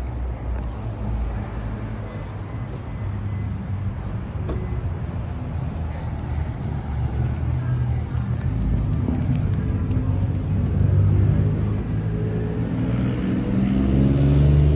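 Street ambience: a steady low rumble of road traffic, growing louder near the end.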